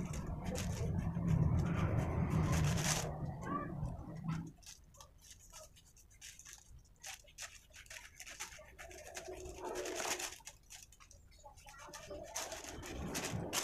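A knife cutting the spiky green rind off a jackfruit, giving many short crunching, scraping clicks. A low steady sound runs under it for the first four seconds or so, then stops.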